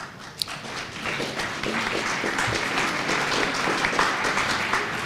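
Audience applauding, the clapping building up within the first second and then holding steady, with one sharp click just before it starts.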